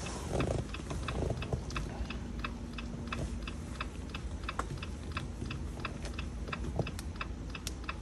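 Jeep Wrangler's hazard-light flasher ticking steadily, roughly four ticks a second, with the hazards switched on as the smart-key programming procedure requires.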